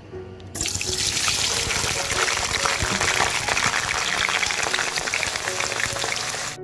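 Water running from a tap, a steady splashing rush that starts suddenly about half a second in and cuts off abruptly near the end, with soft background music underneath.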